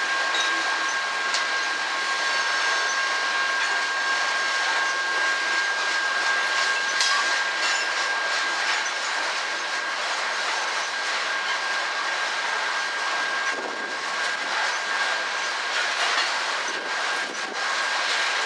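Coal hopper cars of a freight train rolling past: a steady rattle and rumble of steel wheels on rail, with a thin steady high-pitched tone over it and an occasional click.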